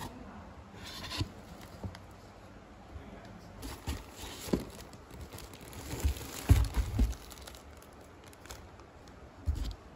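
Cardboard box flaps and plastic-wrapped bedding packs being handled: the plastic wrap crinkles and the cardboard rustles, with several dull knocks about two-thirds of the way through and another near the end.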